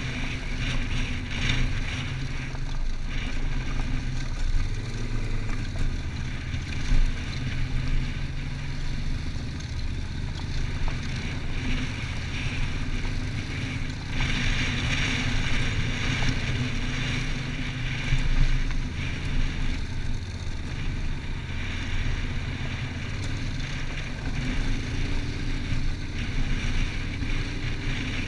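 Motorcycle engine running steadily at cruising speed on a gravel track, with wind rushing over the camera; the rush grows louder for a few seconds about halfway through, and there are a couple of brief jolts.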